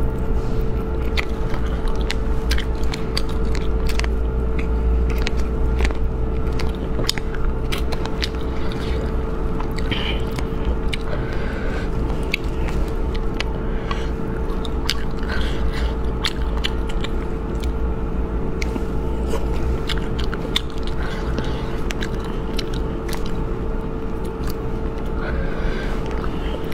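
Close chewing, biting and wet mouth clicks as a person eats spicy rabbit heads by hand, many small clicks. Under it runs a steady low rumble of passing traffic and a constant hum, picked up by a phone's built-in microphone.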